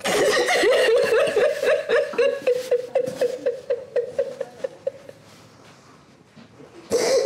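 A woman sobbing hard in grief: a loud, wavering wail broken into short gasping catches that fades over about five seconds, then a fresh loud sob near the end.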